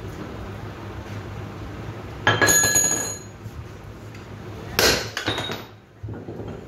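Two heavy sledgehammer blows on steel, about two and a half seconds apart, each ringing briefly with a short clatter after it.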